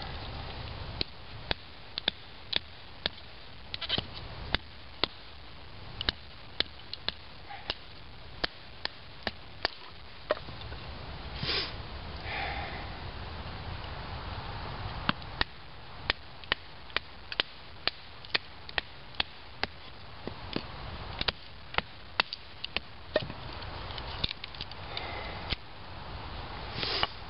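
Knife being batoned down through small split cedar sticks: a string of sharp wooden knocks, irregularly spaced at about one to two a second, with a short lull partway through.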